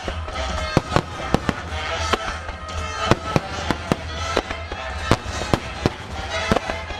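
Aerial firework shells bursting in quick succession, about three sharp bangs a second with a low rumble beneath, over music playing.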